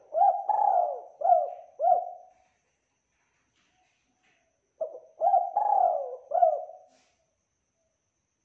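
Spotted dove cooing: two phrases of several short coos each, the first at the start and the second about five seconds in.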